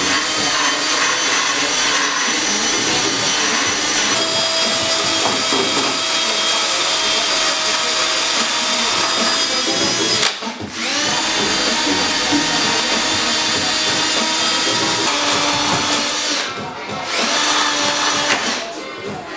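Cordless drill running at high speed with an attachment held against the engine bay's sheet-metal seams, scrubbing off old seam sealer. It gives a steady high whine, stops briefly about halfway through, dips again and winds down near the end.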